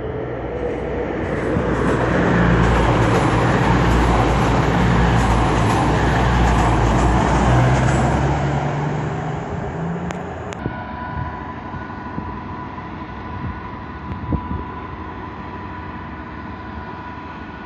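Class 222 Meridian diesel multiple unit passing close by, its underfloor diesel engines droning under the rush of wheels on rail, loudest for about six seconds and then fading. After a sudden cut about ten seconds in, a quieter low rumble with a steady high tone.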